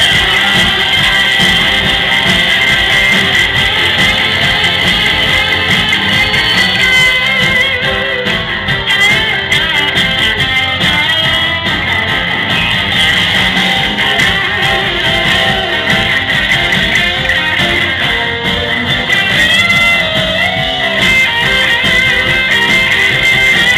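Live rock band playing loud and without a break: electric guitars over drums, bass and keyboard.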